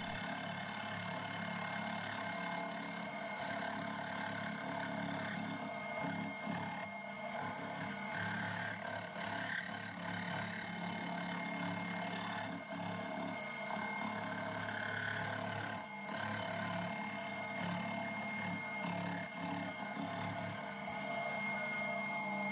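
Milling machine running, an end mill cutting a pocket into a cast iron lathe top slide: a steady motor hum with a constant high whine and the noisy rasp of the cut throughout.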